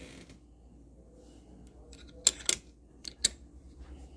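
Sharp metallic clicks from a key being worked in the Lockly Secure Pro smart lock's key cylinder: two close together about two seconds in, then two more about a second later.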